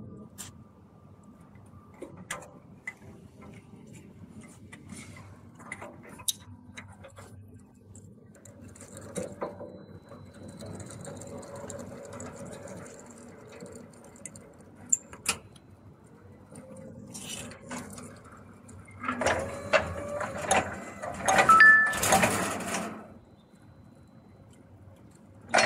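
Scattered clicks and knocks of a heavy battery power connector and its cable being handled at an electric forklift's battery compartment while the battery is being connected. A louder stretch of scraping and rustling comes about three-quarters of the way through, as the cable is worked through the side panel.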